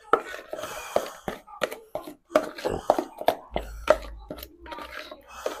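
Metal spoon stirring and beating thick blended bean batter for akara in a bowl: irregular knocks and wet scrapes of the spoon against the bowl, several a second.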